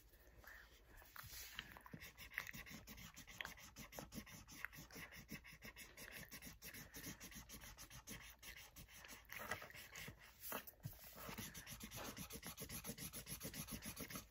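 Felt-tip marker colouring on paper: faint, quick back-and-forth scratchy strokes, several a second, as an area is filled in.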